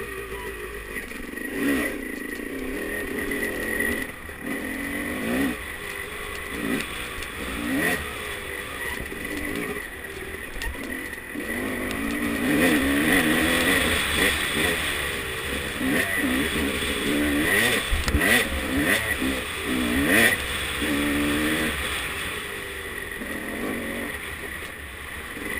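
Off-road dirt bike engine revving up and down as the throttle is worked over rocky singletrack, with several sharp knocks from the bike striking rocks along the way.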